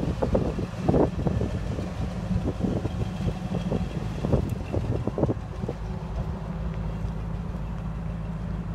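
Ford 460 gas V8 idling steadily. Wind buffets the microphone in uneven gusts through the first two-thirds or so.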